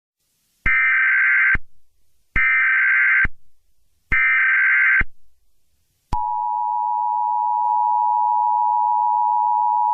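Emergency Alert System tones: three short bursts of SAME header data, about a second apart, then about six seconds in the steady two-tone EAS attention signal starts and holds.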